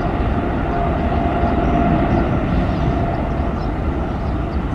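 Boeing 777-300ER's twin GE90-115B turbofan engines at takeoff thrust during the takeoff roll: a steady, loud rumble with a faint held tone running through it.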